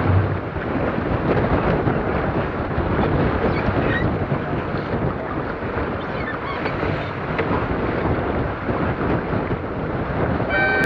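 Strong wind buffeting the microphone and water rushing past the hull of a heeled Sonar keelboat sailing hard, a steady dense rush. A horn-like tone starts right at the end.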